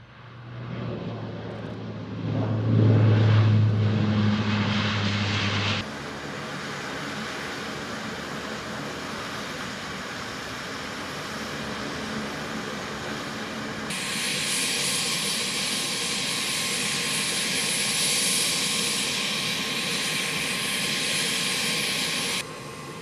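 Lockheed C-130J Hercules turboprop engines running, in edited shots. First comes a loud, low, steady propeller drone as the aircraft rolls down the runway. The sound shifts abruptly about six seconds in to steadier engine noise. Around fourteen seconds in it shifts again to a high turbine whine with the propellers turning close by.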